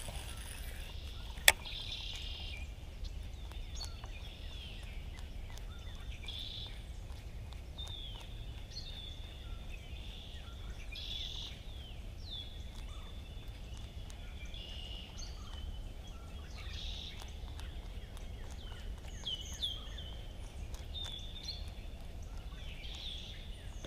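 Wild birds calling over and over, short high chirps and down-slurred notes, over a steady low rumble. A single sharp click about a second and a half in.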